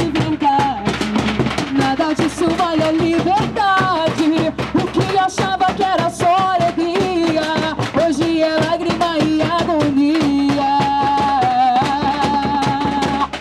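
Live band music with fast, dense percussion under a wavering melodic lead line; it cuts off suddenly at the very end.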